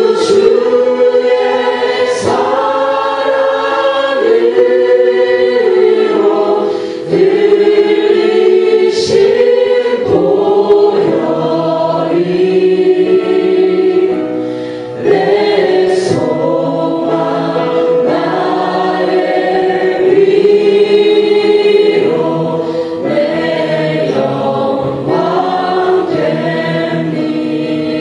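A congregation and worship team singing a slow Korean hymn together, choir-like, each phrase on long held notes.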